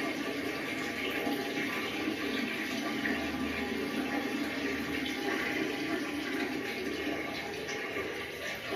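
Water running in a steady, even rush.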